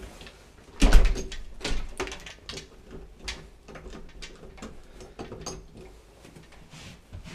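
A heavy thump about a second in, then a run of lighter, irregular knocks and clicks.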